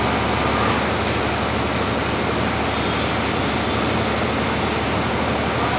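Concrete block-making machine running: a steady, loud, even rush of machine noise with a low hum underneath, holding level without a break.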